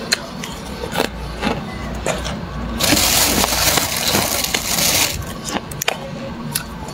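Thick freezer frost being scraped and broken off by hand: sharp cracks and crunches, with one longer, louder scrape from about three to five seconds in.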